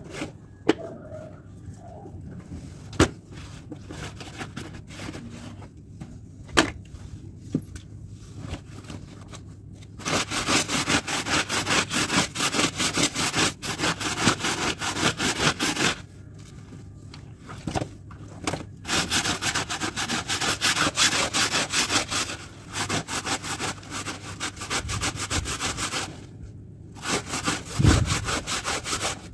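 Wet clothes being scrubbed by hand on a hard floor: rapid, even back-and-forth scrubbing strokes in long runs with short pauses. A few sharp knocks come before the scrubbing starts, about a third of the way in.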